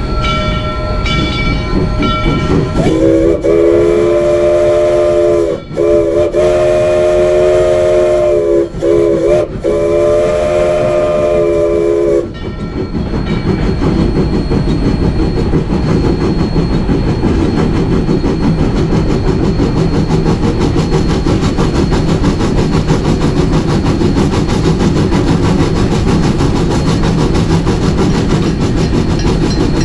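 Rio Grande Southern No. 20, an 1899 4-6-0 steam locomotive, sounds its chime steam whistle in four blasts, long, long, short, long: the grade-crossing signal. Before it, a ringing repeats about twice a second. Afterwards the locomotive runs on with a steady rumble of exhaust and wheels on rail.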